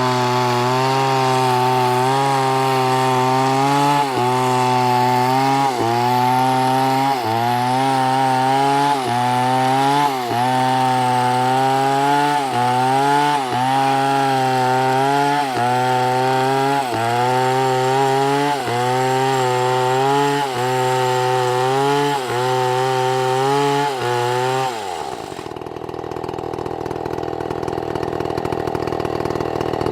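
Chainsaw at full throttle cutting through a dead palm trunk, its engine note sagging briefly about once a second under load. Near the end it drops to idle for several seconds, then revs back up.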